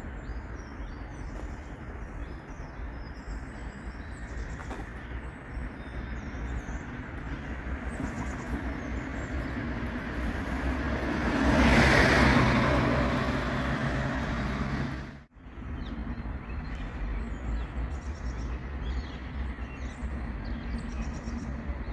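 Open-air station ambience: low traffic and wind rumble with birds chirping. A vehicle passes about halfway through, swelling to the loudest point with a low hum and then fading. The sound cuts out briefly a few seconds later.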